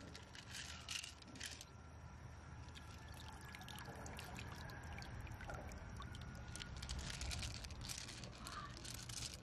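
Loose pearls clicking against one another and the mussel shell as fingers stir them, in clusters near the start and again toward the end, over a steady trickle of running water.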